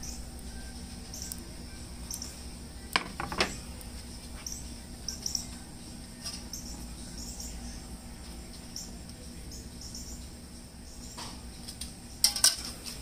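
Solo Stove Pi Prime propane pizza oven's burner running with a steady low rush while a pizza bakes. Birds chirp in short, high calls throughout. A few sharp clicks come about three seconds in and again near the end.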